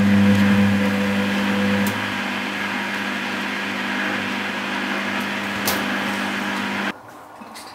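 Constructa Contura washing machine running with a steady electric hum, louder for the first two seconds, that cuts off abruptly about seven seconds in.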